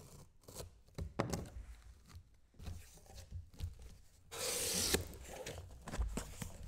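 Cardboard shipping carton being opened by hand: tape slit, flaps pulled apart and cardboard rubbing and scraping, with a loud rasping slide for under a second a little past the middle as the inner case box is drawn against the carton, then a dull thump about a second later.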